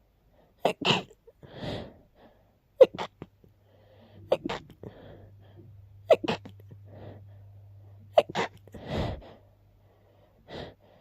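A person's sneezing fit: sharp sneezes repeated in quick pairs, about five times, with breaths drawn in between.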